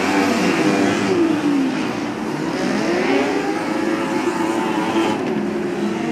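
Lightning sprint car engines racing on a dirt oval, several at once, their pitch rising and falling as the cars accelerate, pass and lift for the turns.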